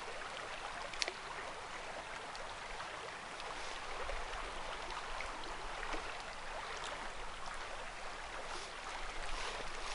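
Steady rushing of river water flowing over a riffle, with a single sharp click about a second in.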